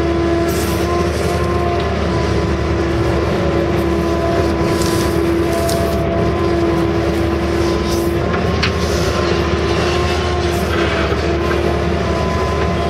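Case CX160 excavator's diesel engine and hydraulics running under load while digging, heard from inside the cab: a loud, steady drone with a steady whine over it. A few faint short clicks now and then.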